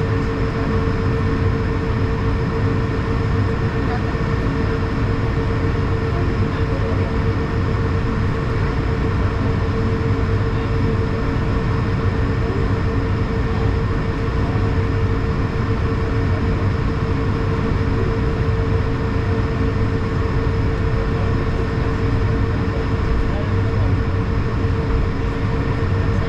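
Airbus A220's Pratt & Whitney PW1500G geared turbofan engines running at taxi power, heard inside the cabin as a steady rumble with a constant mid-pitched drone over it.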